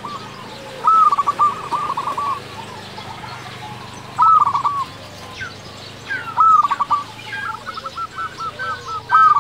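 Zebra dove (perkutut) singing: about four loud phrases, each a high opening coo followed by a quick run of short staccato notes, with a softer run of notes between the last two phrases.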